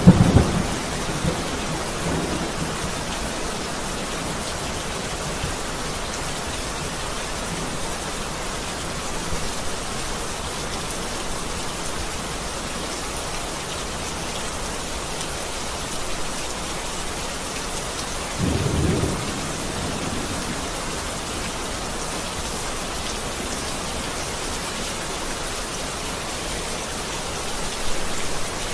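Steady rain falling, with short low rumbles of thunder: one fading in the first second, another about two-thirds of the way through, and one near the end.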